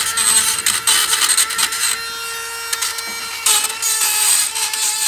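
Dremel rotary tool whining at high speed, grinding rust out of the Allen-head sockets of rusty brake caliper bolts. The grinding is heaviest for the first two seconds, eases off, and picks up again about three and a half seconds in.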